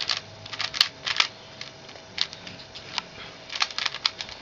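Plastic Rubik's cube being turned by hand: quick irregular clicks and clacks of the layers rotating, some in fast runs of several turns.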